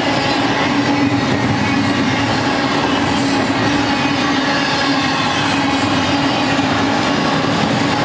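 Double-stack intermodal freight train's well cars rolling past: steady noise of steel wheels on the rails, with a constant hum underneath.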